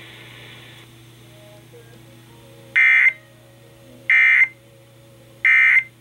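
Emergency Alert System end-of-message code played through a clock radio's speaker: three short, harsh digital data bursts about a second and a half apart. They mark the end of the Amber Alert broadcast.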